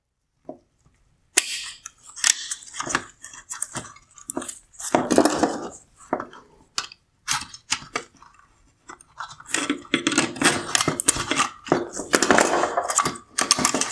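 Irregular plastic clicks, scrapes and rattles of a headlight's projector assembly being handled and pried as the Bi-Xenon wire clip is worked off the AFS motor, starting about a second and a half in and busiest near the end.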